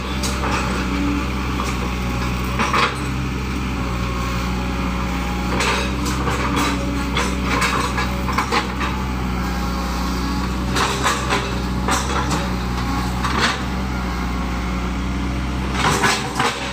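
Excavator's diesel engine running steadily, with scattered metallic clanks and knocks over it.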